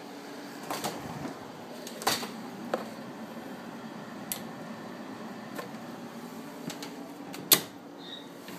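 Scattered sharp clicks and knocks, about eight of them, over a steady low background hum; the loudest is a single sharp knock about seven and a half seconds in.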